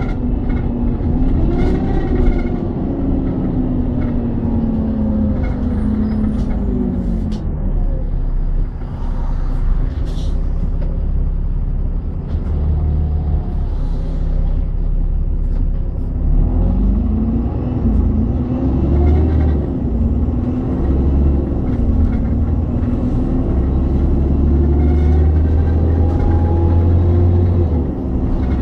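Alexander Dennis Trident double-decker bus with a ZF automatic gearbox, heard from on board: a heavy diesel rumble with engine and transmission whine that rises, falls away, and climbs again about halfway through as the bus speeds up and slows. Occasional rattles from the body.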